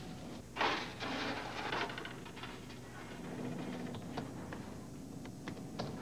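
Automated bottle-dispensing machine at work: scattered clicks, knocks and clatter over a low steady hum, with a louder knock about half a second in.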